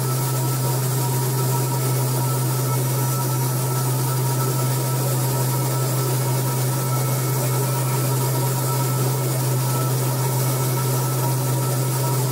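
Steady running noise of a DED hybrid machine during laser cladding, laying metal powder into a milled pocket: a strong constant low hum with faint steady tones and a hiss above it, unchanging throughout.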